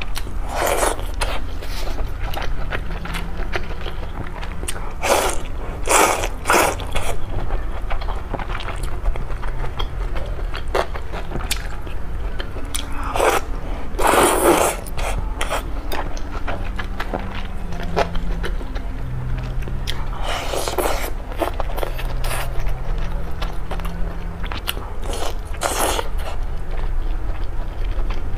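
Close-miked mukbang eating: a person biting and chewing braised fatty pork in short bursts every few seconds. Noodles are slurped about halfway through, in a longer burst, over a steady low hum.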